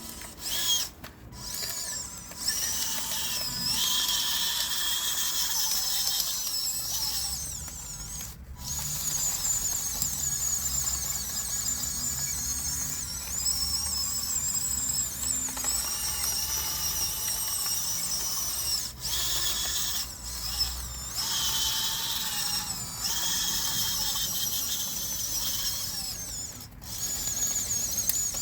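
Small electric motors and gearboxes of radio-controlled construction models whining at a high pitch that wavers up and down as they work, with a few brief pauses.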